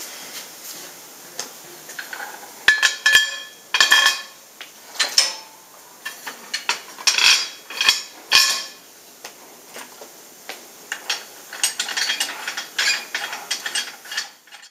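Heavy steel-framed kiln door being shut and barred: a series of loud metal clanks with a short ringing tone as the iron locking bar is slid across and dropped into its brackets, then a quicker, lighter metallic rattling near the end that cuts off suddenly.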